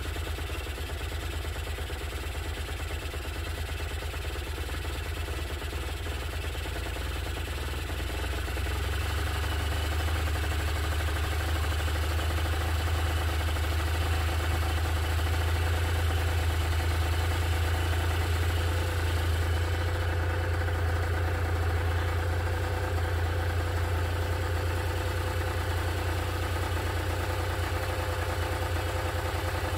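Honda NS250F's two-stroke V-twin engine running at idle, steady, then getting louder and slightly higher in pitch about nine seconds in and holding there.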